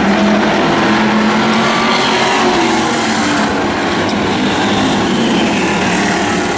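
Engines of demo race cars and pickup trucks running laps together on an oval track, a steady mix of several engines whose pitches drift slowly up and down.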